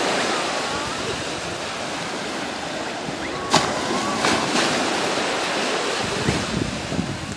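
Small waves breaking and washing up on a sandy beach, a steady rush of surf, with one brief sharp sound about three and a half seconds in.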